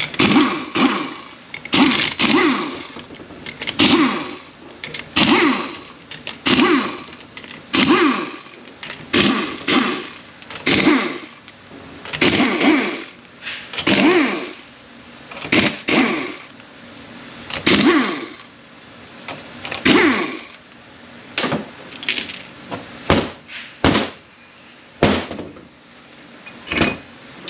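A handheld power tool spins out the 10 mm bolts of an A650E transmission's oil pump in short bursts, about one every one to two seconds, its motor pitch wavering up and down in each burst.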